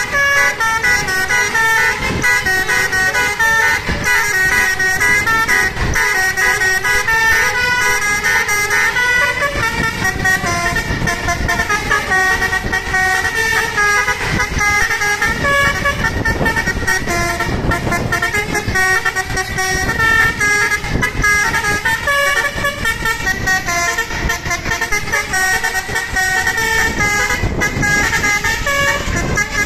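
A bus's basuri telolet horn, a multi-trumpet musical horn, playing a fast running melody of quickly changing notes without pause, over the noise of vehicles on the road.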